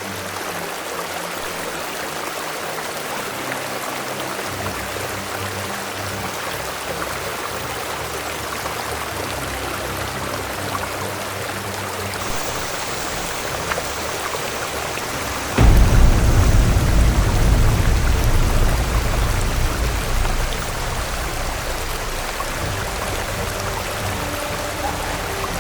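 Steady rush of falling water from the second tier of the Erin-Ijesha waterfall, with background music of held chords laid over it. About two-thirds of the way in, a much louder low rumble comes in suddenly and slowly eases.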